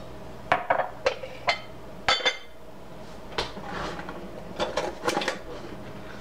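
Stainless steel cookware clinking and knocking on the stovetop: a scattered series of sharp metallic clinks, one ringing briefly about two seconds in.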